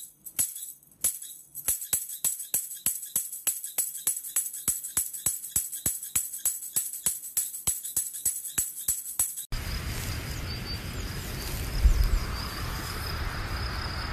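A steady, even beat of sharp metallic jingling strikes, three to four a second. It cuts off suddenly about two-thirds of the way through and gives way to a steady outdoor hiss with a faint high whine.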